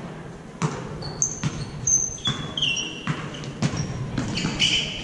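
A basketball bouncing on a hardwood gym floor in irregular thuds, with several short high-pitched sneaker squeaks from players moving on the court.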